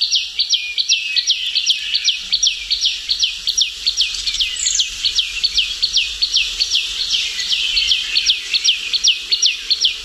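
Common tailorbird singing its loud repeated call, rendered "pichaav pichaav": a fast, even series of sharp high notes, about four a second, each dropping steeply in pitch.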